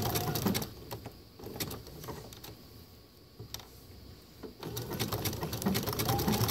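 Domestic sewing machine stitching a blanket stitch at speed, a fast even clatter of the needle. It stops about half a second in, leaving a few faint clicks, and starts stitching again about four and a half seconds in.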